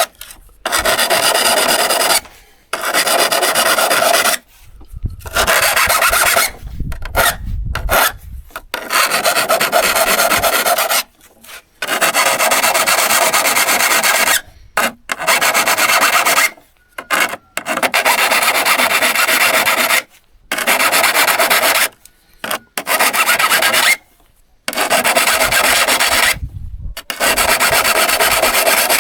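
Hand-worked abrasive strokes on the steel of a vintage handsaw, a loud rasping scrub in stretches of one to three seconds broken by short pauses.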